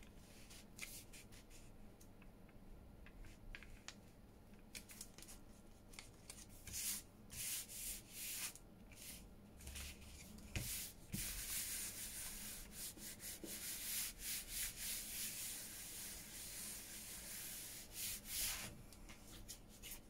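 Paper being rubbed in repeated strokes, smoothing glued collage pieces flat onto a board. A few light handling ticks come first; the rubbing starts about a third of the way in and runs almost without a break until near the end.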